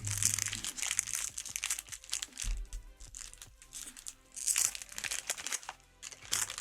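Foil Pokémon card pack wrappers crinkling in the hands as small booster packs are opened and handled, with many short crackles, over quiet background music.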